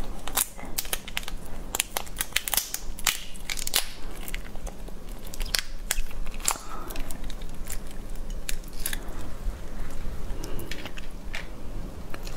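Raw langoustine (Norway lobster) shell crackling and snapping as it is peeled off the tail by hand: irregular runs of sharp clicks, busiest in the first few seconds.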